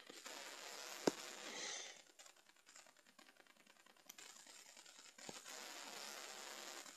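Faint rustling and handling noise from a handheld camera, with a few sharp clicks, the loudest about a second in.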